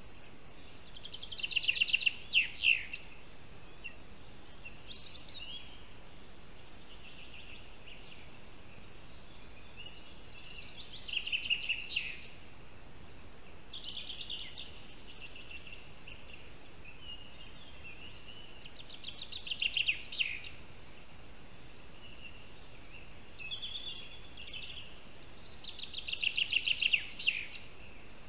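A bird singing a short, fast trilled phrase that swells and ends abruptly. It repeats four times about eight seconds apart, with softer short notes in between.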